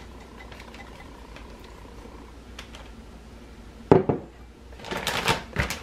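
A glass measuring cup knocks down sharply on the stone-look countertop about four seconds in, after a few quiet seconds with faint ticks. Near the end the plastic zip-top bag rustles and crinkles as it is handled.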